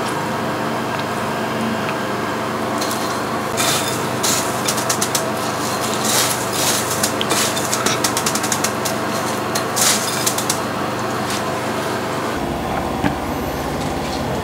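Chicken drumsticks being pressed and rolled in dry breadcrumbs by plastic-gloved hands, giving a run of crisp crackling crunches from about three and a half seconds in to about ten seconds in, over a steady mechanical hum.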